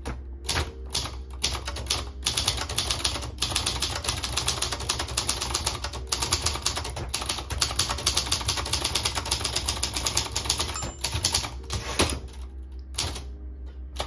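Royal Mercury (Silver Seiko) ultra-portable manual typewriter being typed on quickly: a dense run of rapid typebar strikes that thins out to a few separate strikes near the end.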